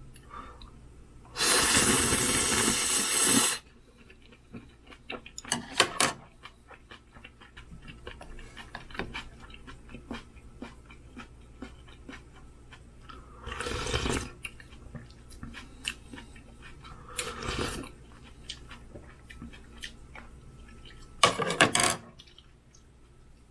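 Someone slurping ramyun noodles: one long loud slurp about a second and a half in, then several shorter slurps, with faint clicks between.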